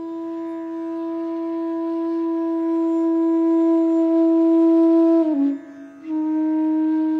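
Indian classical music: a wind instrument holds one long note that swells in loudness, breaks off briefly about five seconds in with a slight drop in pitch, then holds a slightly lower note over a steady drone.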